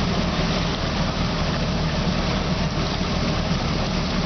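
Engine of a small passenger boat taxi running steadily, a low hum under an even hiss.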